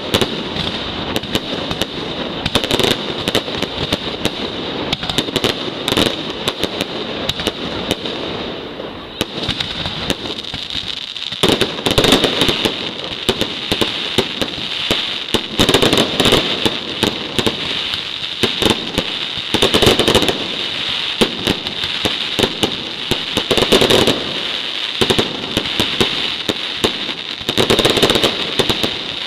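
Night mascletà fireworks: a rapid, unbroken barrage of bangs and crackling from aerial shells. Heavier volleys swell about every four seconds in the second half.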